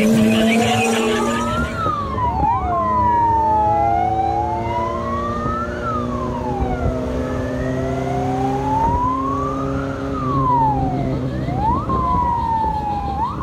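Fire-rescue vehicle sirens wailing, slowly rising and falling about every four seconds, with a second siren sweeping quickly a couple of times. Engine and road noise run underneath.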